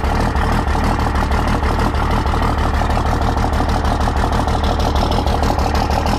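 24-valve 5.9-litre Cummins diesel idling steadily with an even, rapid pulse through an exhaust stack in the truck bed, just after a cold start at −3°F.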